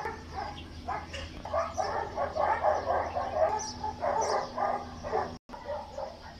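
An animal calling in quick repeated runs, one from about a second and a half in and a shorter one after four seconds, over a steady low hum.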